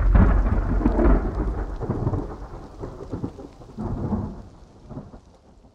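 A deep rumble with a crackling, rain-like patter, fading away over about five seconds with a couple of small swells on the way down.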